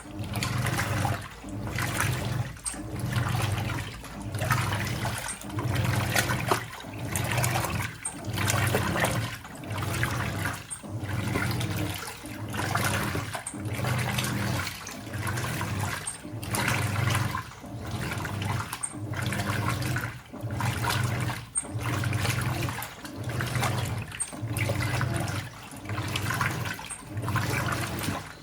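Hoover 800RL top-loading washing machine agitating. The motor hums in quick, evenly repeated strokes, about one a second with very little pause between them, while water sloshes through the load.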